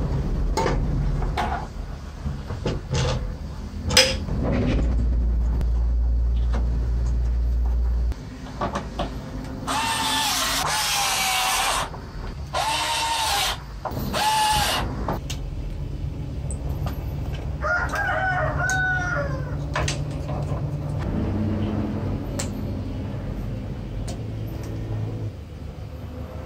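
Clicks and knocks of plastic casing, wiring and circuit boards being handled as a CRT monitor is taken apart, with a low hum for a few seconds near the start. Around the middle, a loud, long pitched call comes three times in quick succession, followed by a fainter, wavering one a few seconds later.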